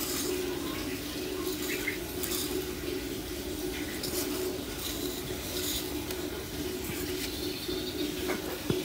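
A steady low hum with two close pitches, under faint light clicks and rustles of hands shaping rice-flour dough cups and filling them with jaggery.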